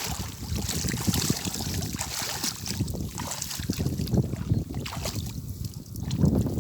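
Water splashing and sloshing, with a hissing spray strongest in the first few seconds over a continuous low rumble.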